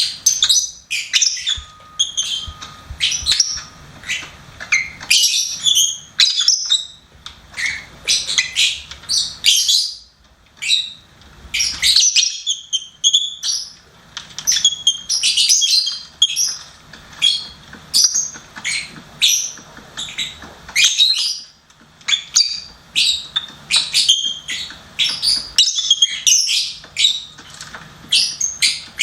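Lovebirds chirping and chattering in quick, shrill, high-pitched calls that tumble over one another with only brief pauses.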